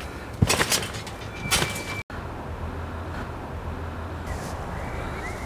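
Garden trampoline struck twice about a second apart as someone bounces on it: sharp creaks of the mat and springs. After a sudden cut comes a steady low outdoor hum with a few faint bird chirps near the end.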